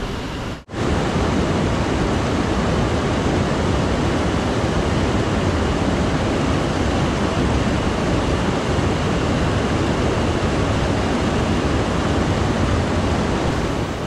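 Mountain stream water rushing steadily. It drops out for an instant just under a second in and comes back louder.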